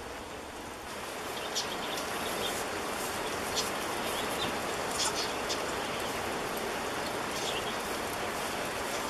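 Steady hiss of rain, with short high bird chirps now and then.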